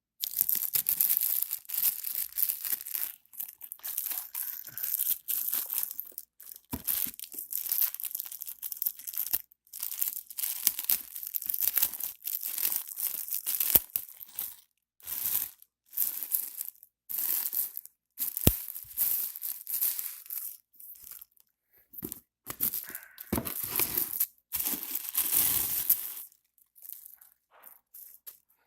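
Packaging being handled and torn open: paper and plastic crinkling and tearing in irregular bursts with short pauses, and a few sharp clicks.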